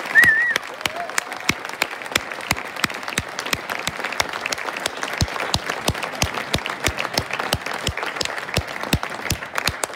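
Audience applauding with dense, irregular clapping, and a short high wavering whistle right at the start.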